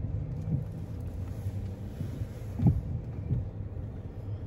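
Car engine idling, heard as a steady low rumble inside the cabin, with a few brief low bumps around the middle.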